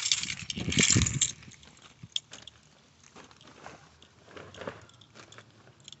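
A loud rustling burst of microphone handling noise in the first second or so, then faint scattered clicks and rustles as a handheld camera is moved about.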